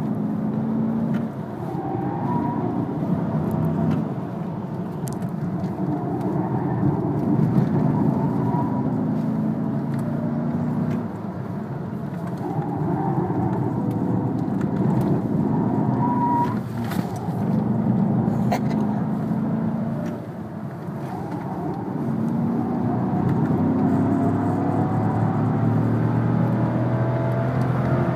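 Chrysler 300 SRT's HEMI V8 heard from inside the cabin, driven hard on a road course: the engine note climbs under full throttle, drops back at each upshift or lift for a corner, and climbs again, several times over.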